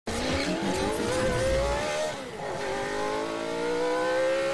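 Engine accelerating hard, its pitch climbing steadily, dropping briefly about two seconds in, then climbing again more slowly.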